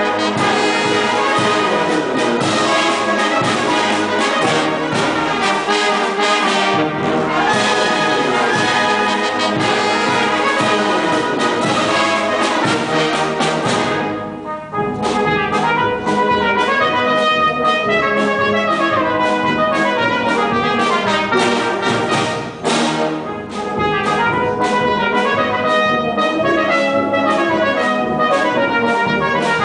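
Brass band playing a march: cornets, euphoniums and trombones sound together in full, steady ensemble. The band thins out for a moment about halfway through, then comes back in.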